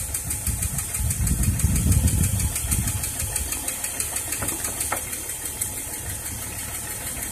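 Jeep Grand Cherokee straight-six engine idling steadily, with a couple of light clicks from the tools on the battery terminal about four and five seconds in.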